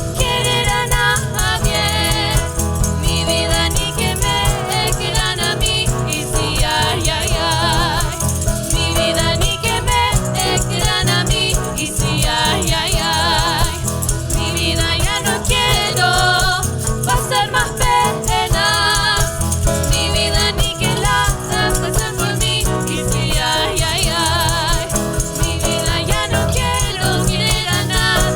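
Live cueca music: singing over instruments, with percussion keeping a steady beat.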